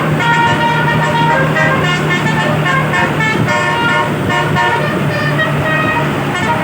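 Bus telolet horn, a set of multi-tone air horns, playing a quick tune of short notes that jump between pitches. A steady low hum runs underneath.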